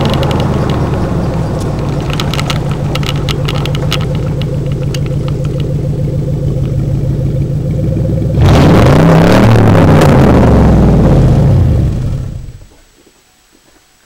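1998 Ford F-150's 4.6-litre V8 exhaust running steadily at low revs. About eight seconds in it is suddenly revved hard, the pitch rising then falling, and a little before the end the engine shuts off.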